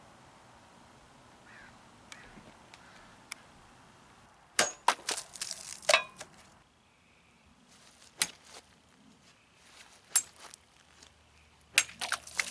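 Hand-forged kopis short sword, made from a lawnmower blade, slicing through plastic bottles of liquid: sharp whacks as the blade cuts, with bottle pieces and liquid splashing onto the board. A quick cluster of strikes comes about four and a half seconds in, single hits around eight and ten seconds, and another cluster near the end.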